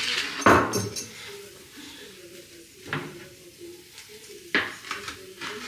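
Kitchenware clattering on a counter: a heavy stone mortar knocked and shifted, loudest about half a second in, then a ceramic baking dish set down on a wooden cutting board with a sharp knock near the end.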